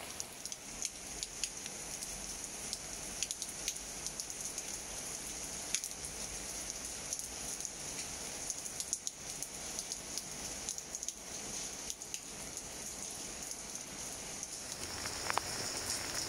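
Steady rain falling on leaves: an even hiss with many scattered drop ticks, growing a little louder and heavier near the end.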